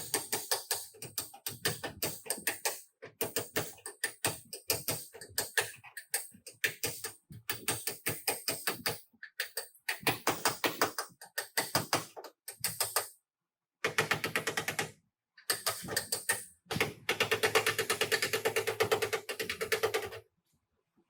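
Rapid tapping and clicking of tools at work, many strikes a second, in short segments that cut off suddenly into silence. A steady low hum joins the tapping near the end.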